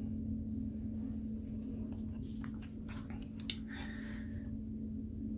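A steady low hum, with a few faint clicks and a brief soft rustle from the phone being handled.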